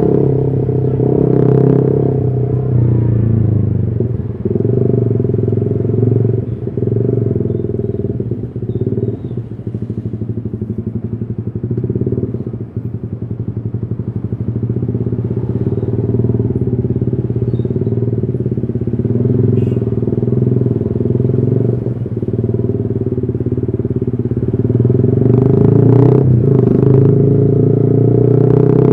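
Yamaha R15 V3's 155 cc single-cylinder engine running through a custom exhaust as the bike is ridden. The engine note eases off around the middle and builds again with rising revs near the end.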